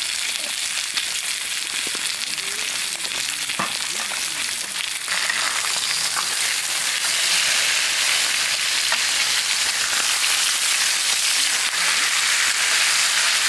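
Pork belly sizzling in a grill pan on a portable gas stove, a dense hiss that grows louder about five seconds in.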